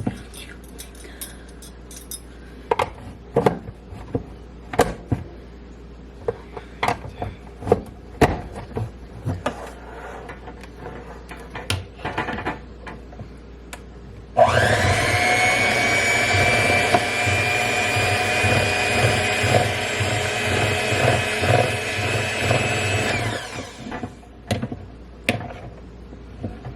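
Scattered clicks and knocks, then an electric kitchen mixer switches on suddenly about halfway through and runs at a steady speed for about nine seconds, mixing the egg into the cookie batter, before it stops.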